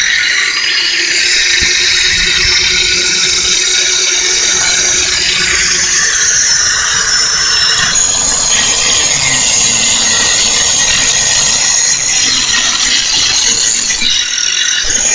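4.5-inch Chicago heavy-duty angle grinder running continuously under load, its disc grinding with a loud, high screech that shifts in pitch about eight seconds in.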